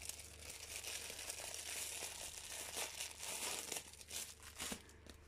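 Thin plastic packaging crinkling and rustling in the hands as a pack of small zip-lock plastic bags is handled and unwrapped, thinning out to a few light crackles near the end.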